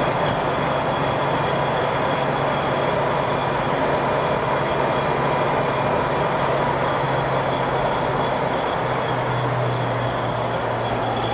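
Jeep running with a steady mechanical drone and a constant thin high whine over it, the unidentified noise the owner is trying to trace. The low hum steps slightly lower about nine seconds in.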